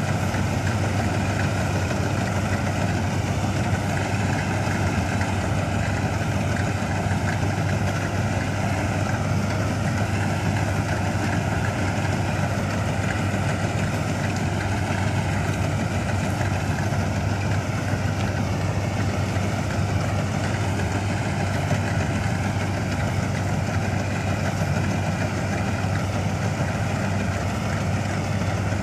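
1965 Ködel & Böhm Köla Combi Special combine harvester running steadily, its engine note even and unchanging.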